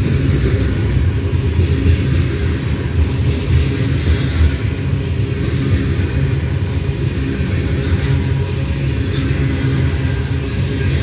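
Loaded covered hopper cars of a freight train rolling past, their steel wheels rumbling steadily on the rails, with one sharp click about eight seconds in.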